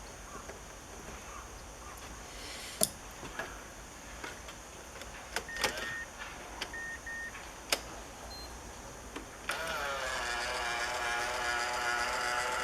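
Mazda Biante power-folding side mirror's motor running for about three seconds, a whine that rises briefly as it starts and then holds steady, as the mirror folds or unfolds. Before it come a few sharp clicks and two pairs of short high beeps.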